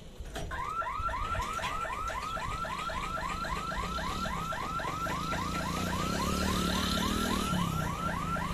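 Level-crossing boom barrier's electronic warning sounder: a rapid string of rising electronic chirps, about four a second, sounding while the boom swings up.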